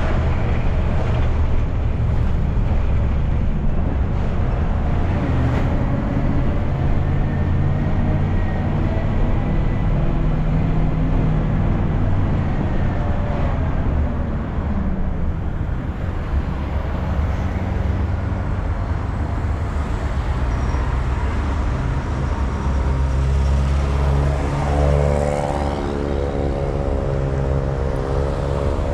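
Engine of a city micro (minibus) running under way with road and traffic noise, a steady low drone; about 24 s in the engine note rises as it pulls away.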